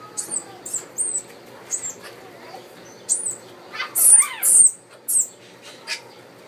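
Small monkey giving a string of short, high-pitched chirps, about eight of them spread over several seconds, the loudest around the middle.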